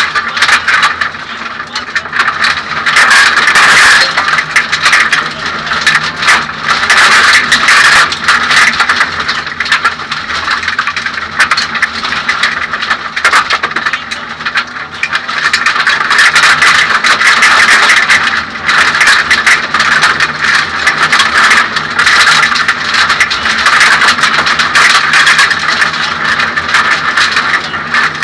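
Suzuki Swift 1600 N2 rally car's four-cylinder engine running hard at speed on a gravel stage, heard inside the stripped cabin, its loudness rising and falling with throttle and gear changes. Gravel and tyre noise from the dirt road and steady rattling of the cabin fittings run throughout.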